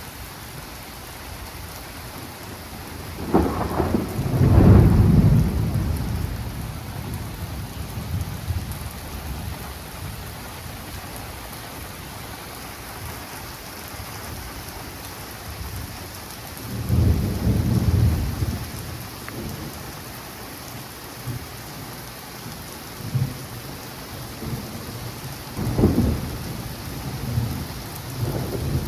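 Thunderstorm: steady rain throughout, with thunder cracking and rumbling about three seconds in (the loudest, rolling on for several seconds), another rumble around the middle, and a short sharp crack near the end.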